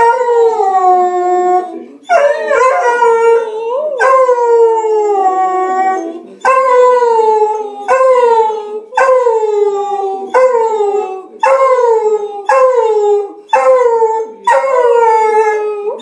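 Beagle howling: three long howls that each slide down in pitch, then a run of shorter falling howls about one a second.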